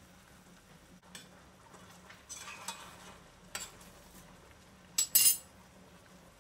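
Metal spoon scraping and clinking against a stainless steel pot, ending in two sharp clinks about five seconds in, over soy-sauce braising liquid simmering faintly.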